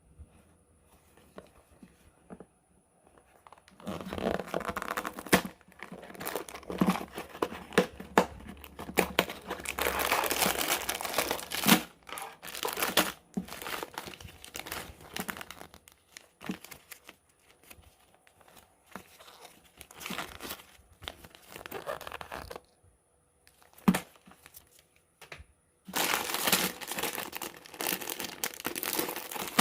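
Packaging of a Lego set being torn open and crinkled by hand, in irregular bursts of rustling with a few sharp clicks. It is quiet for the first few seconds and busiest in the middle and near the end.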